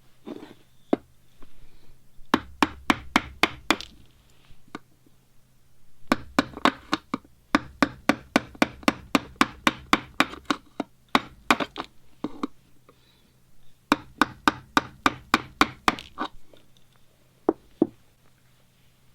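Wooden mallet tapping rapidly on an upholstery teardown tool, in three runs of about five sharp knocks a second with a few single knocks between them.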